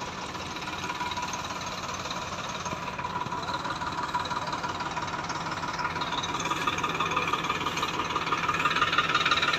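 Farmtrac 60 tractor's diesel engine running with a knocking rattle as it pulls a trolley heavily loaded with sugarcane. It grows louder over the last few seconds.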